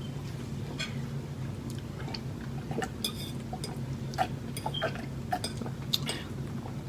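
Someone drinking at a table: small sips and liquid sounds, with light scattered clinks of a glass and cutlery, over a steady low hum.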